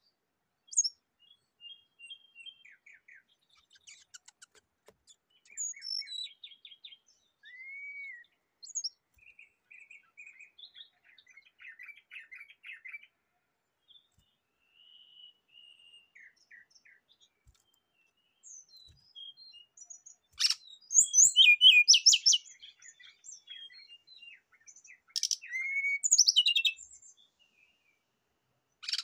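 Brown-chested jungle flycatcher (sikatan rimba dada coklat) singing: scattered short chirps and rapid chattering trills, with the loudest bursts of song about two-thirds of the way through and again near the end.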